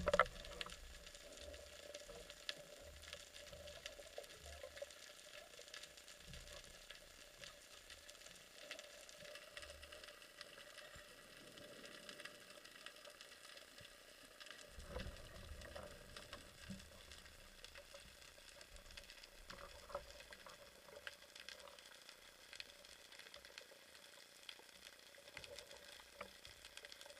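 Faint underwater crackling and ticking of the sea, with a faint steady hum and a brief low rumble about halfway through.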